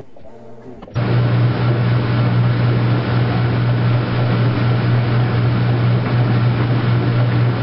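Washing machine running with a loud, steady low hum under a dense rushing noise that starts abruptly about a second in and cuts off suddenly near the end.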